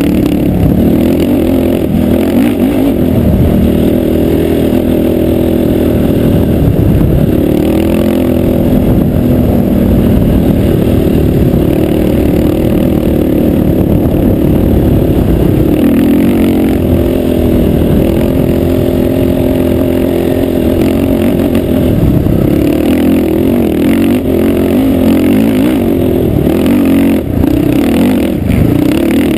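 A 450-class sport quad's engine running hard throughout, its pitch rising and falling again and again as the throttle is worked while riding on sand.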